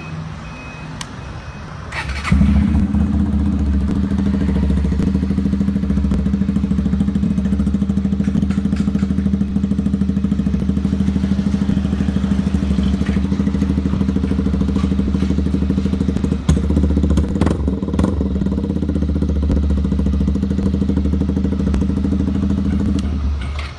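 Single-cylinder engine of a 2020 Suzuki Gixxer SF 155 running through an aftermarket SC Project exhaust. It gets much louder about two seconds in, then holds a steady pitch with only a brief dip in the later part, and falls away just before the end.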